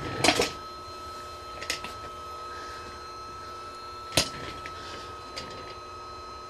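Creality Ender 3 V3 Plus 3D printer running its self-check: a steady high whine with a few sharp clicks and knocks, the loudest about four seconds in.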